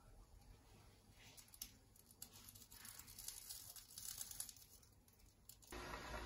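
Faint crackling and ticking from a stainless steel pot of milk heating on a radiant ceramic hob, not yet at the boil. Near the end a louder steady hiss sets in abruptly.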